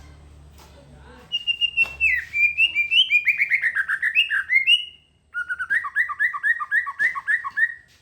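Caged songbird singing loudly: a quick, varied run of high whistled notes, a brief pause, then a fast series of repeated two-note figures.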